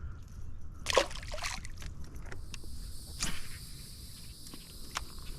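Insects buzzing in a steady high-pitched chorus, with a few scattered clicks and a sharper knock about a second in.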